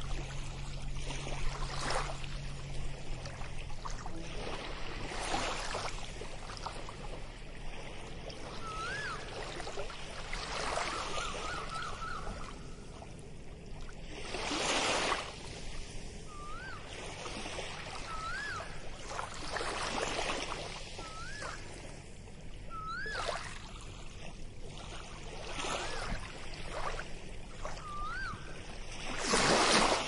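Small waves washing onto a sandy beach, one hissing swell every few seconds, the last one the loudest. From about a third of the way in, a bird gives a short call that rises and falls, repeated every second or two.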